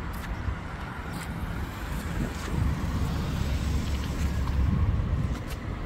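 Road traffic rumbling past, a low noisy rumble that swells about two seconds in and eases slightly near the end.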